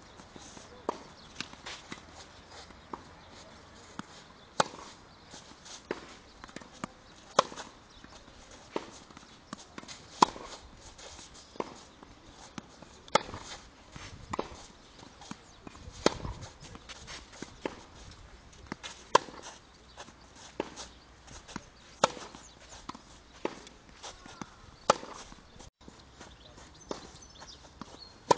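Tennis balls struck with a racket in a steady groundstroke rally, sharp pops with a loud hit about every three seconds and fainter hits and ball bounces between, plus shoes scuffing on the clay court.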